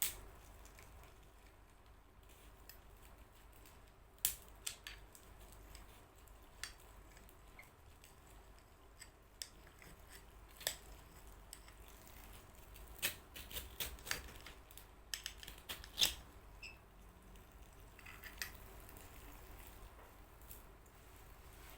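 Faint, scattered sharp clicks and snaps from hand work with crisp krupuk crackers and a glass of iced syrup water, busiest about thirteen to sixteen seconds in.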